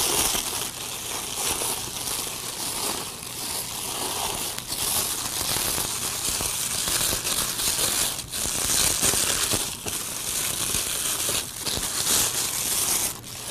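Metallic twisted glitz ribbon crinkling as hands push and fluff the loops of a bow: a continuous rustle with a few brief pauses.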